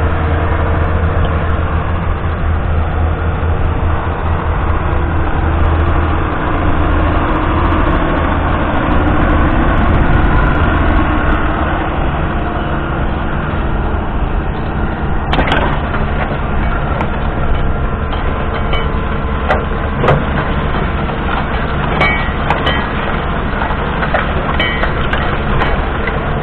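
John Deere 6930's 6.8-litre six-cylinder diesel engine running steadily as the tractor pulls a Kuhn reversible plough through stubble, with the rush of soil over the plough bodies. From about halfway on, scattered sharp knocks and clicks break through the steady noise.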